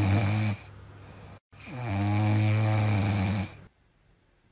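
A sleeping dog snoring with a low, steady pitch. The tail of one snore ends just after the start, then one full snore about two seconds long follows and stops about three and a half seconds in.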